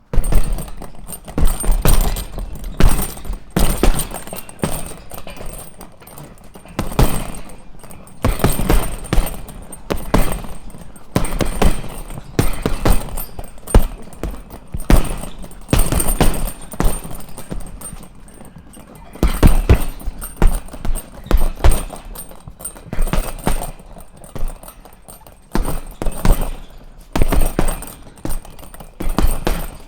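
Punches landing on a punching bag: dull thuds in quick, irregular combinations of a few hits each, with short pauses between the combinations.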